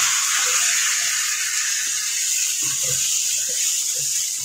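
Boneless chicken pieces and ginger-garlic paste frying in hot oil in a wok: a steady sizzle that eases off slightly, with a wooden spatula stirring and knocking against the pan a few times in the second half.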